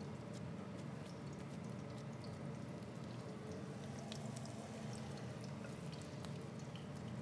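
Minced-meat and mint patties frying in shallow oil in a pan: a steady sizzle with scattered small crackles of spattering oil.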